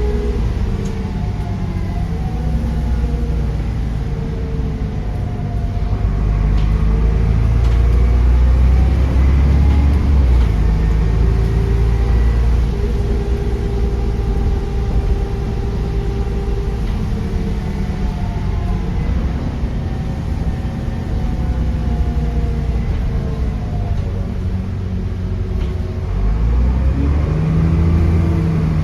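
A bus's turbocharged diesel engine pulling on the move, with its engine note and turbo whistle rising and falling several times as it accelerates and eases off. It is loudest a few seconds in and again near the end.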